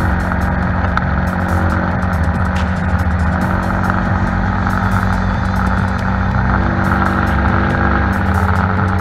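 Motorcycle running steadily at cruising speed, heard from on board, with a continuous engine note and road and wind noise.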